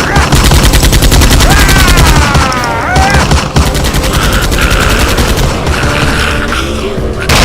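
Rapid machine-gun fire, dense shots about ten a second for the first three and a half seconds, then sparser. A falling pitched wail runs over it about two seconds in, and a loud burst comes near the end.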